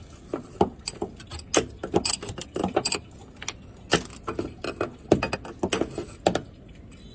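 Irregular clicks, knocks and clinks of small hard parts being handled while the washing machine's drain filter is worked on.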